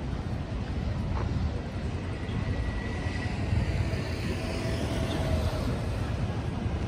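Steady city street background noise, dominated by a low rumble.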